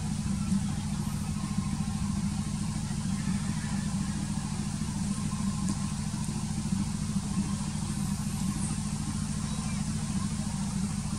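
An engine running steadily with a low, unchanging hum and no revving.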